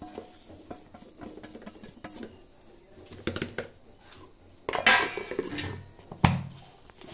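Steel bowl tapping and scraping against a plastic storage container as dried leaves are tipped in, then a plastic lid handled and pressed on, with a clatter and one sharp snap about six seconds in.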